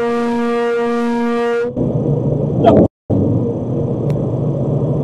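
Semi-truck air horn blown in one long steady blast that stops about a second and a half in. After it, the truck's engine and road rumble carry on in the cab, with the sound cutting out briefly near the middle.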